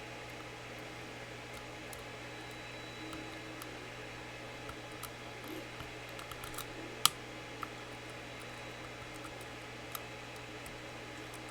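Faint scattered clicks of lock picks working the pin-in-pin tumblers of a Mul-T-Lock Classic Pro, with one sharp click about seven seconds in.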